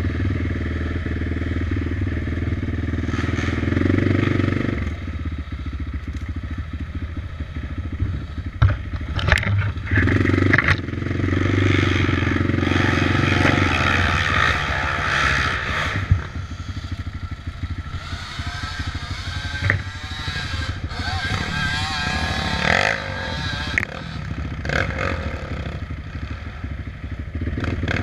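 Off-road vehicle engine running along a rough trail, its pitch rising and falling with the throttle, with a few sharp knocks and clatter from the bumpy ground.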